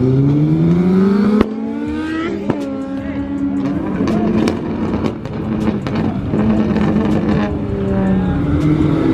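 Car engine accelerating hard, its pitch rising for about a second and a half, then dropping suddenly, as at a gear change or lift-off. It runs on at a lower, fairly steady pitch with scattered sharp ticks and pops, and climbs again near the end.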